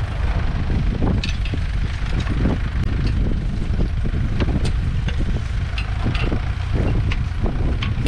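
Steady wind rumble on the microphone, with irregular clinks and knocks from a horse-drawn single-furrow plough and its harness chains as two horses pull it through the stubble.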